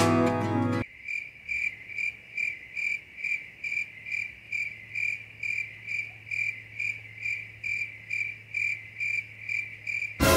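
Background music cuts off about a second in, leaving a comic cricket-chirp sound effect: short, evenly spaced chirps, a little over two a second, the stock gag for an awkward silence.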